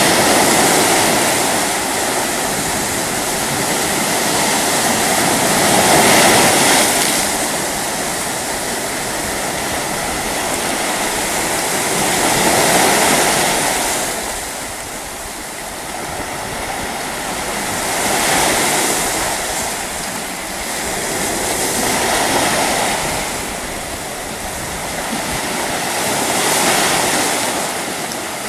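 Sea surf breaking and washing up in choppy waves, the rush swelling and easing about every five or six seconds.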